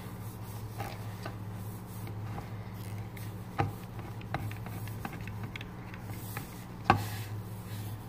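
Slime of glue and hand sanitizer being mixed in a bowl: scattered small clicks and taps of the utensil, two of them sharper, about three and a half and seven seconds in, over a steady low hum.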